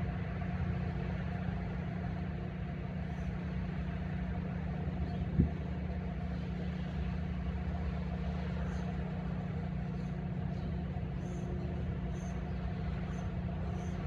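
Steady low outdoor rumble, with one sharp knock about five and a half seconds in.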